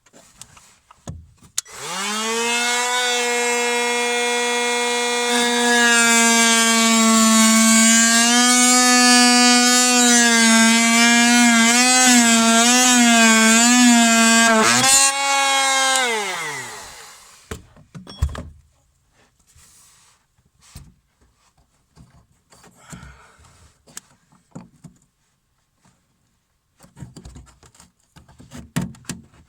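Metabo MT18 LTX cordless oscillating multi-tool starts about two seconds in and runs with a steady high buzz as it cuts through the cupboard panel. Its pitch wavers under load, then it switches off and winds down about fifteen seconds in. Scattered light knocks follow.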